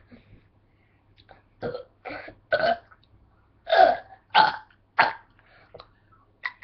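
A person burping: a run of about six short burps, a fraction of a second each, coming one after another from about a second and a half in.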